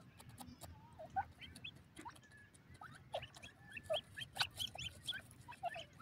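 Young francolins giving short chirping calls, scattered at first and more frequent in the second half, over light scratching and pecking clicks in dry soil.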